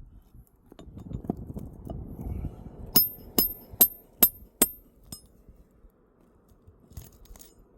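Five sharp metallic clinks with a short high ring, about two or three a second, from metal roofing tools being tapped or knocked together, after a stretch of rustling handling noise.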